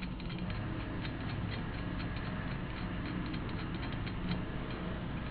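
Wire spokes being worked out of and threaded through a motorcycle wheel hub and rim: a run of light, irregular metallic clicks and ticks over a steady low hum.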